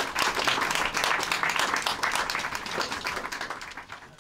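Audience applauding, the clapping thinning and fading away near the end.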